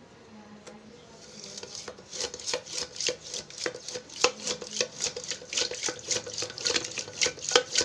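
Hand whisk beating a wet mix of oil, sugar and curd in a stainless steel pot: fast, steady, rhythmic clinking of the wire against the steel, with wet stirring between. The beating starts about two seconds in.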